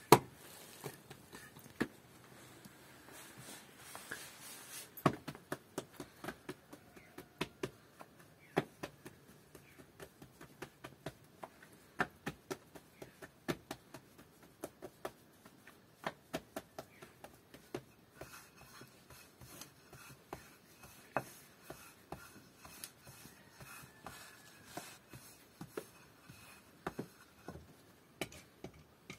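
Irregular sharp clicks and light knocks, often several a second, with no speech.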